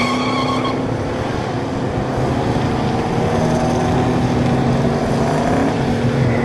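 Muscle car engines running loud on a drag strip, with engine tones that rise a little in the second half. A high tire squeal carries over from just before and stops under a second in.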